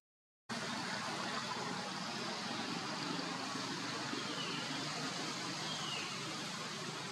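Steady outdoor background noise, an even hiss with no clear single source, after about half a second of dead silence at an edit; two faint short chirps sound a little past the middle.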